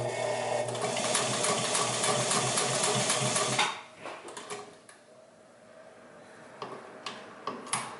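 1949 Singer 31-15 industrial sewing machine with a roller foot, stitching rapidly through thick leather over a steady motor hum for about three and a half seconds, then stopping suddenly. A few light knocks come near the end.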